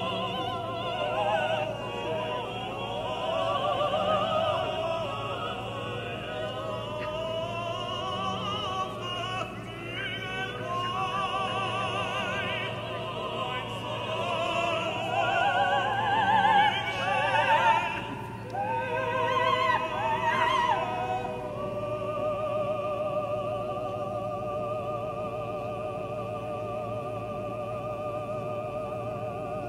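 Operatic singing with classical accompaniment, the voice wavering with vibrato and settling into a long held note in the last third, over a low steady hum.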